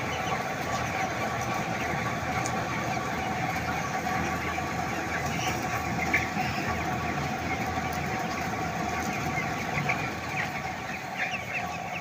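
A large flock of young broiler chickens peeping and cheeping continuously, many birds at once, over a steady machine hum.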